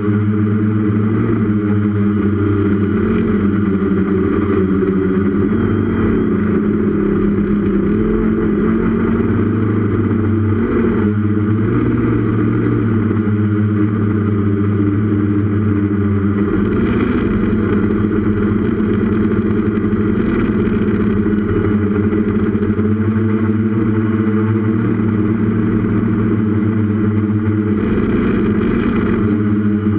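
Brushless Tiger motors and propellers of a 6S Iconic-X FPV multirotor, heard through its onboard camera in flight. They make a steady, loud, multi-tone hum whose pitch shifts slightly as the throttle changes.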